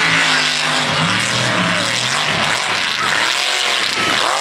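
Voodoo mega mud truck's engine running hard as the truck drives the mud track. It holds fairly steady for the first couple of seconds, then surges up and down in pitch.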